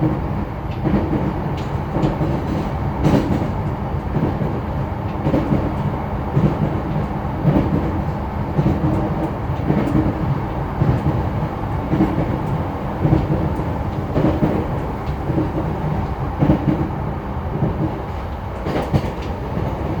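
JR East E233-0 series electric commuter train running at speed, heard from inside the car: a steady rumble of running noise with repeated knocks of the wheels passing over rail joints.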